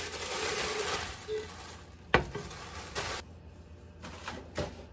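Thin plastic wrapping crinkling as a large nonstick stock pot is pulled out of it, then a sharp knock about two seconds in as the pot is set down on the smooth-top stove, followed by a few lighter knocks.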